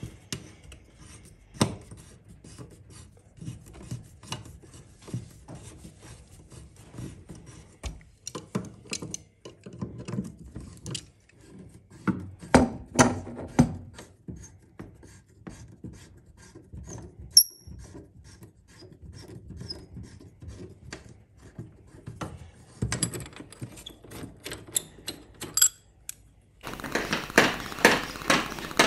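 Copper pipework and brass fittings beneath a combination boiler being handled and worked loose by hand: scattered clicks, knocks and metal scraping, busiest about twelve to fourteen seconds in.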